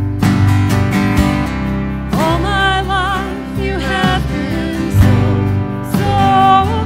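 Live worship band music: a woman's sung line with vibrato over electric guitar, coming in about two seconds in, pausing, and returning near the end.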